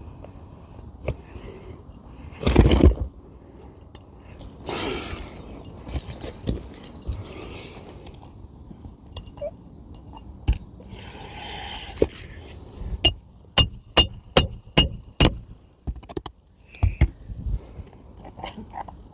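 A hammer driving a roofing nail through a shingle into the roof decking: a quick run of about seven ringing metal-on-metal blows near the end, after scattered light clinks and brief rustles earlier.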